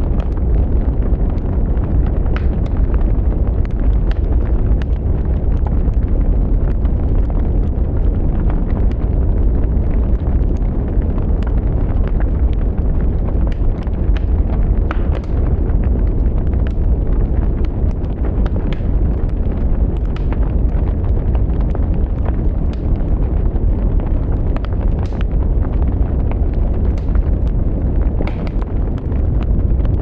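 Wood fire burning: a steady low rumble of flames with frequent sharp crackles and pops from the burning sticks and logs, several a second, scattered irregularly.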